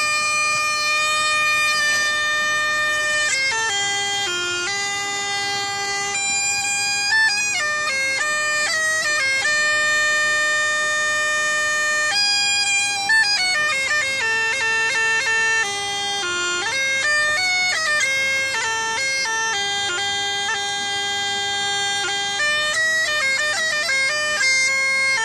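Bagpipe played solo: a melody on the chanter over a steady, unbroken drone, with quick ornamented runs of notes here and there.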